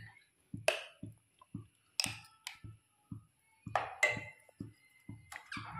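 A metal spoon clicking and tapping against the bowl and the non-stick kadhai while thick amla paste is scraped into the pan: about seven sharp clicks, some with a brief ring.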